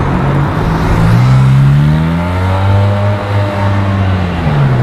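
A car engine accelerating: its pitch climbs from about a second in, holds high, then drops away near the end.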